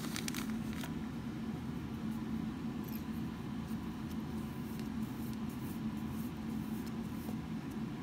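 Faint rustling and small scratchy ticks of fingers working dubbing onto fly-tying thread, over a low steady hum.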